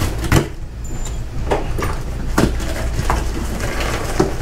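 Cardboard box being pulled open and torn away from a new floor jack, with about half a dozen short knocks and rips as the flaps and packing are wrenched and the metal jack shifts inside.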